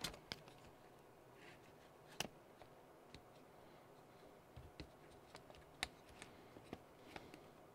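Faint, scattered clicks and taps of small parts being handled as a brushless motor is worked into an RC car's chassis to line up its mounting holes, over near-silent room tone.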